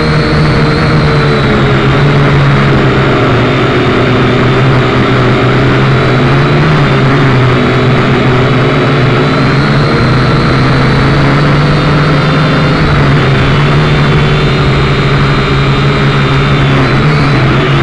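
Motor and propellers of a radio-controlled model aircraft, heard loud and close from its onboard camera: a steady hum with a higher whine, the pitch wavering slightly and shifting near the end as it comes down low.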